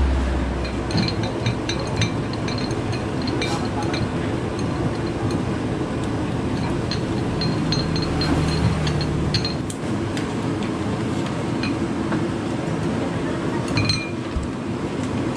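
Light clinks and taps of a wire noodle strainer and wooden chopsticks against ceramic bowls as boiled noodles are portioned out, scattered over steady background noise.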